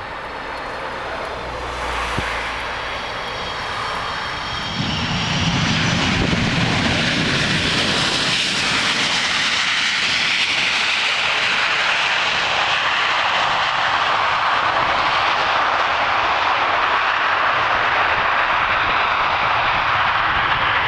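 McDonnell Douglas MD-80 jetliner landing, its rear-mounted Pratt & Whitney JT8D turbofans whining at first. About five seconds in the sound jumps to a loud, steady roar as reverse thrust is engaged and held.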